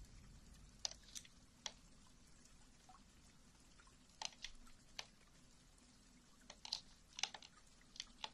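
Faint ASMR mouth sounds: about a dozen short, crisp mouth clicks scattered irregularly, with quiet between them.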